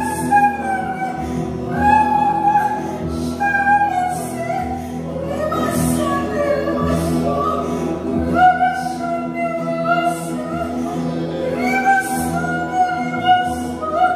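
Praise and worship song: a woman singing the lead melody with backing singers, over a live band of electric bass, acoustic guitar and drums, with bright cymbal strikes about every two seconds.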